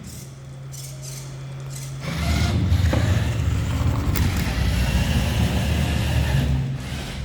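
Homemade robot vacuum cleaner's motors running after being started in auto mode: a steady low hum, then louder low running from about two seconds in that drops off near the end.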